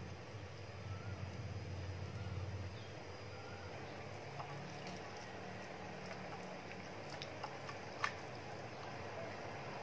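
A hand mixing sauce-coated prawns in a glass bowl: faint wet squishing with a few light clicks against the glass, the sharpest about eight seconds in. A low hum runs under it for the first three seconds.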